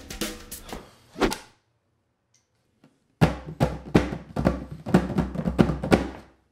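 A rawhide-headed hand drum played with bare hands: after a short silence comes a quick run of slaps and deep bass tones, about four strokes a second, lasting about three seconds. Before it, background music fades out and a single thunk is heard.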